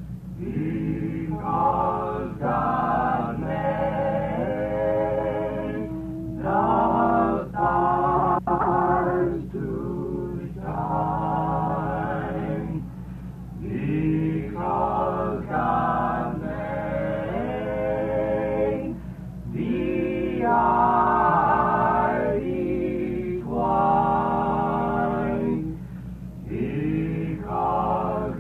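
Background music: a vocal group singing an old-time song in harmony, in phrases of a few seconds with short breaths between them. The sound is dull and narrow, like an old recording.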